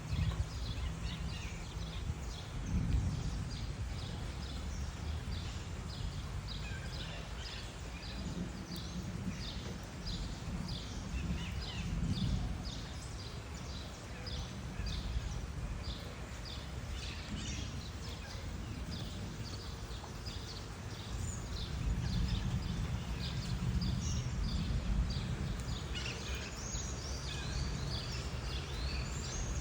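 Outdoor ambience: a low rumble, swelling now and then, with short high chirps repeating about once a second through most of it, fewer toward the end.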